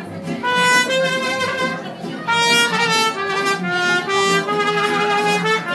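Mariachi band playing live, with trumpets carrying the melody in phrases of held notes.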